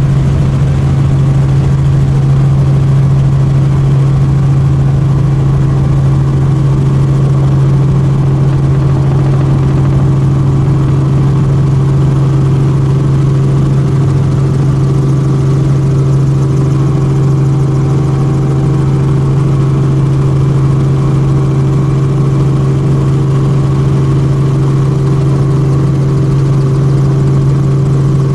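Tour helicopter in flight: a loud, steady drone with a strong low hum and fainter higher tones, unchanging in pitch and level.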